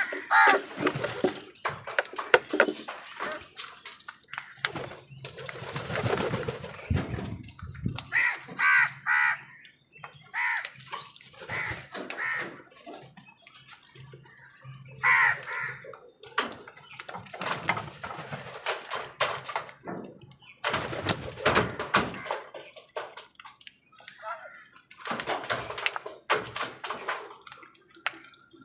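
Crows cawing in short runs of harsh calls, several in quick succession, with other birds calling and scattered sharp clicks between the calls.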